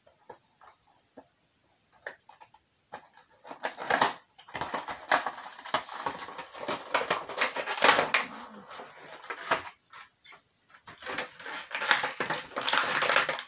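Funko Pop cardboard box being opened and the vinyl figure pulled from its clear plastic wrap. A few light clicks and taps of cardboard first, then dense plastic crinkling and rustling from about three seconds in.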